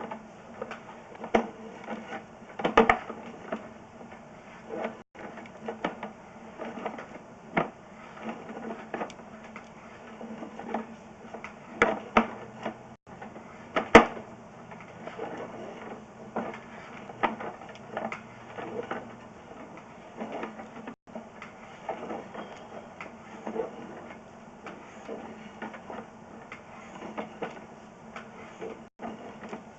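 Sewer inspection camera's push cable being fed along the pipe: a run of irregular clicks, knocks and rattles over a faint steady hum, with a sharper knock about fourteen seconds in.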